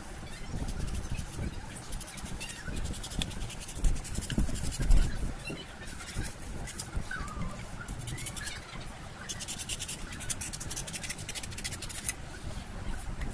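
Snap-off utility knife blade drawn through a thermocol (expanded polystyrene) sheet, giving a rapid scratchy crackle from the foam in several stretches of cutting. A couple of dull knocks come about four and five seconds in.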